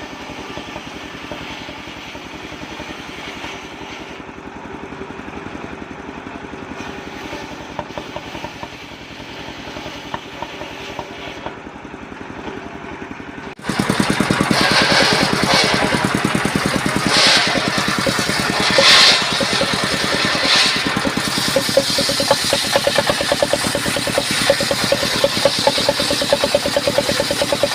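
Small engine driving a homemade circular sawmill, running steadily at low speed, then about halfway through suddenly opening up and running much louder at high speed, with several short higher-pitched surges.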